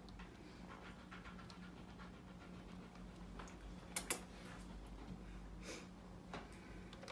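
Ginger kitten moving about on a computer keyboard while being stroked: faint scattered clicks and rustles, with a pair of sharp key clicks about four seconds in, over a steady low hum.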